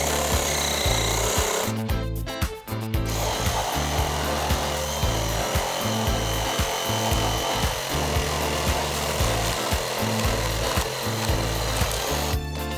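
Ryobi 18V cordless reciprocating saws sawing through a wooden block: the older RRS1801M first, then, after a short break about two seconds in, the newer RRS18-0. The cutting breaks off briefly again near the end.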